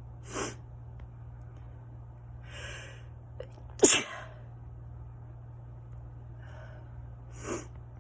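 A person's allergy sneeze: one sharp, loud sneeze about four seconds in, after a drawn-in breath, with quick breaths shortly before and near the end.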